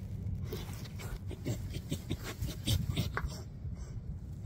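White bull terrier puppy sniffing and snuffling right at the microphone: a run of short, irregular sniffs and clicks over a steady low rumble.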